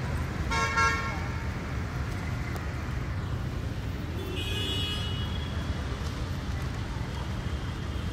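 Steady low city traffic rumble. A short vehicle horn toot sounds about half a second in, and a higher-pitched toot follows a few seconds later.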